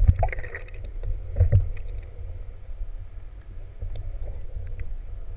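Muffled, low rumbling water noise picked up by a camera in a waterproof housing held under the sea surface, with a few brief knocks, the strongest about a second and a half in.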